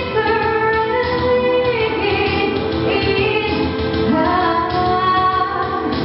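A woman singing into a microphone, holding long notes.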